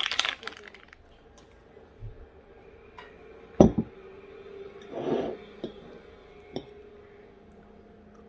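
A few scattered clinks and knocks, one much sharper than the rest, with a short rustle and a faint steady hum in a small room.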